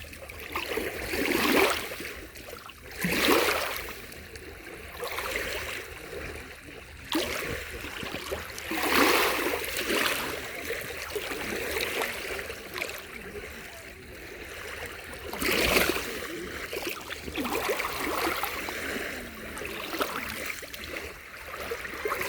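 Black Sea waves washing onto the shore: a steady rush of water that swells into several louder surges a few seconds apart and falls back between them.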